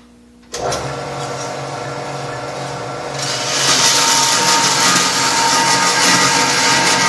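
Vertical bandsaw switches on about half a second in and runs with a steady hum. About three seconds in, a louder, higher hiss joins as the blade cuts into 1/8-by-1-inch aluminum strap to square its end.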